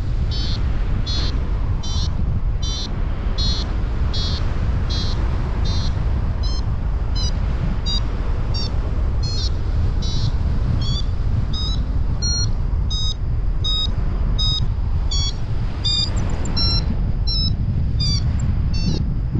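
Paragliding variometer beeping, short high beeps about twice a second, the tone a vario gives in rising air. Under it runs a steady rush of wind on the microphone.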